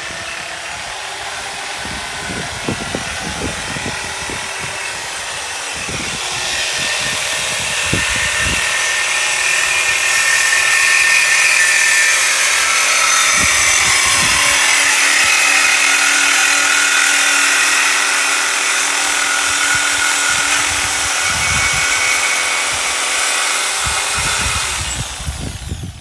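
Corded electric angle grinder running and grinding into a metal exhaust pipe clamped in a vise, a steady motor whine under a harsh hiss. It gets louder about six seconds in and cuts off near the end.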